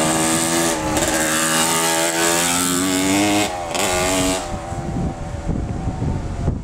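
Kawasaki KX125 two-stroke dirt bike engine revving hard as the bike pulls away, its pitch climbing and dipping with the throttle, then fading off about four and a half seconds in as it rides into the distance, leaving wind rumble on the microphone.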